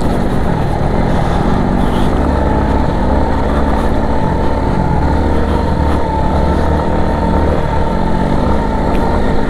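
A vehicle's engine running steadily while under way, with a faint steady whine above it.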